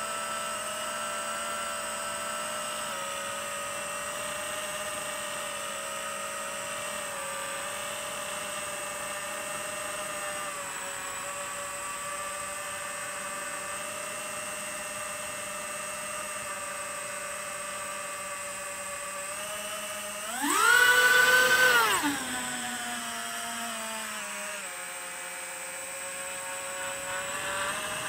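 FPV quadcopter's brushless motors and propellers whining steadily in flight, as heard from the quad itself. About twenty seconds in the pitch and loudness jump sharply as the throttle is punched for a climb, hold for about a second and a half, then fall back to a lower whine.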